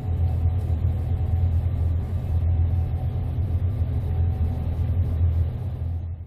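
Gleaner S98 combine harvester running steadily in the field, its engine and threshing machinery giving a continuous low rumble.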